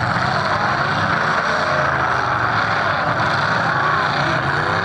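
Engines of several demolition derby cars running and revving together in a steady loud din, the pitch rising and falling with the revs.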